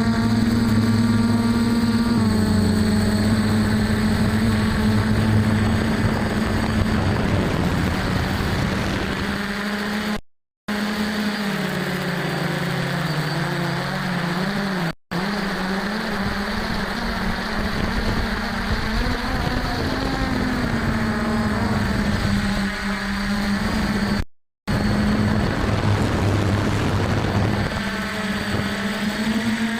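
DJI F450 quadcopter's four brushless motors and stock propellers humming steadily in flight, the pitch dipping and rising again as the throttle changes. The sound cuts out completely three times, each time briefly.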